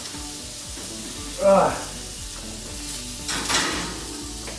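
Steak sizzling in a hot skillet as it is moved into the oven. A short, loud squeak that falls in pitch comes about a second and a half in, and a brief clatter about three and a half seconds in.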